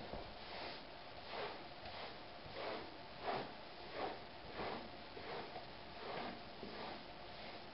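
Handheld pet hair remover brushed back and forth over a velvet cushion, a short scraping swish with each stroke, about one to two strokes a second, lifting cat hair off the pile.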